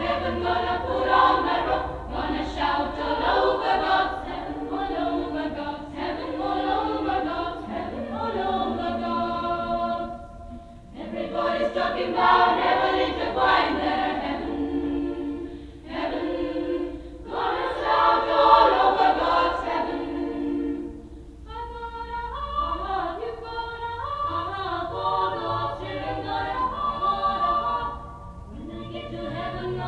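Choir singing a cappella, in phrases with short breaks between them, over a steady low hum.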